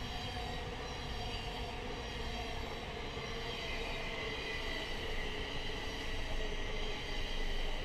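A train running on rails: a steady rumble with several held, slightly wavering tones over it.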